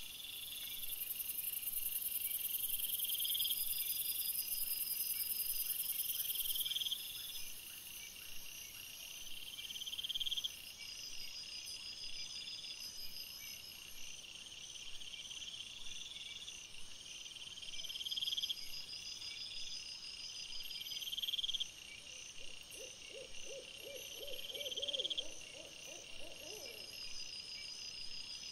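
Night insects chirping: a short rising chirp every two to three seconds over steady high trills. Near the end comes a few seconds of a low, rapidly pulsing call.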